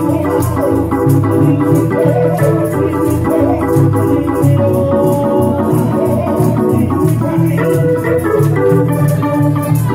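Church band playing an instrumental gospel groove: organ chords over a walking bass line, with a hand rattle keeping a steady beat.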